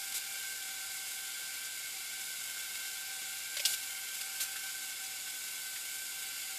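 Electric ventilation fan running steadily: an even hiss with a faint steady whine. A few faint clicks come through as the boards are handled.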